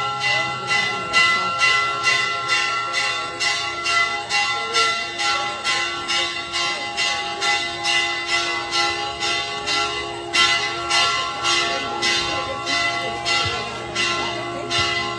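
Church bells ringing a rapid festive peal (repique), about three strikes a second, each strike ringing on into the next. The peal greets the procession's image.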